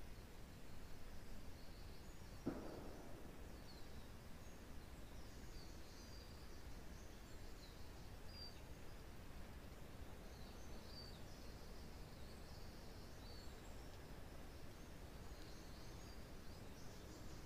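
Faint woodland ambience: small forest birds give short, high, thin chirps on and off over a low, steady rumble of wind. A single sharp knock sounds about two and a half seconds in.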